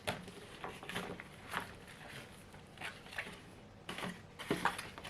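Paper envelope being opened and handled: short, scattered rustling and crinkling.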